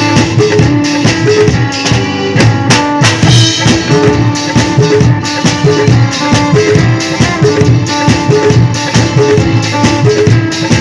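Live band music with a steady beat, an electric guitar played among the instruments.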